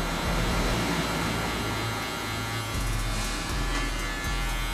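Cordless hair clipper with a guard comb attached, its motor buzzing steadily as it cuts a fade on the side of the head.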